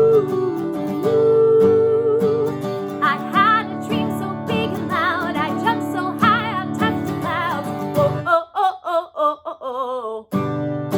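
A pop song with strummed acoustic guitar, a steady beat and wordless 'ooh' singing. For about two seconds near the end the guitar and beat drop out, leaving only the voices, then the full band comes back in.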